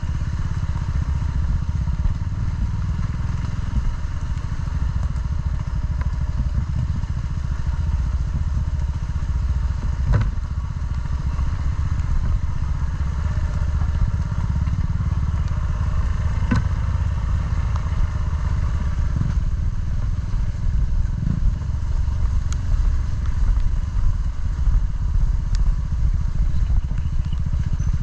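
Off-road motorcycle engine running steadily on a trail, with a few sharp knocks about ten and sixteen seconds in.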